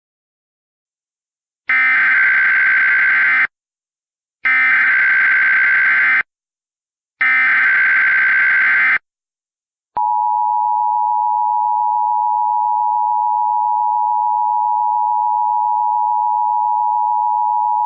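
Emergency Alert System SAME header: three identical bursts of rapid digital data tones, each just under two seconds long. About ten seconds in, the steady EAS attention tone begins and holds unbroken for about eight seconds.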